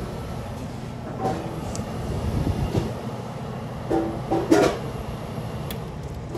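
Condensing unit of a small drop-in freezer running: hermetic compressor and condenser fan motor humming steadily. About four seconds in come a few short knocks and clicks as the thermostat control is handled.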